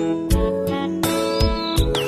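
Instrumental background music of held notes over a low beat, with a few short high chirps in the second half.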